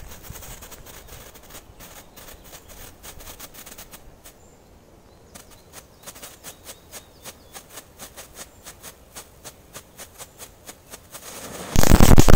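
A lit firecracker on the ground ticks faintly and quickly for several seconds, then near the end goes off in a loud burst of several rapid bangs.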